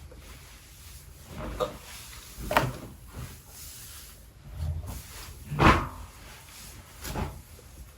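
Five short knocks and bumps, the loudest about six seconds in.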